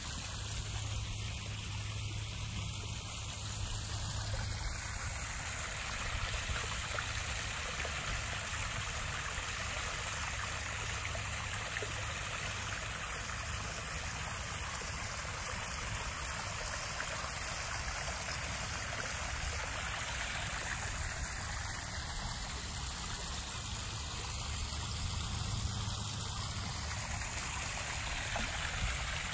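Water running and trickling steadily into a backyard koi pond.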